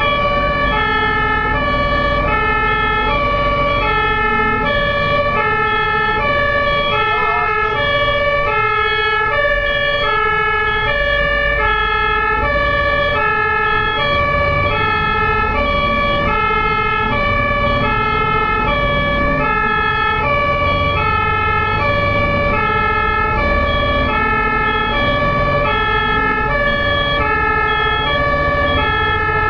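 German ambulance's two-tone siren (Martinshorn) sounding continuously, two pitches alternating evenly back and forth, over a low rumble of vehicle engine and road noise.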